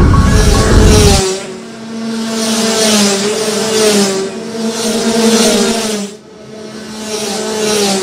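Racing engines running at high revs, their pitch wavering up and down, with a deep boom at the start that dies away after about a second.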